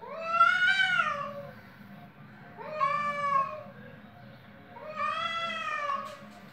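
Cat yowling: three long, drawn-out meows about two seconds apart, each rising and then falling in pitch, the first the loudest. It is the threatening caterwaul of cats facing off.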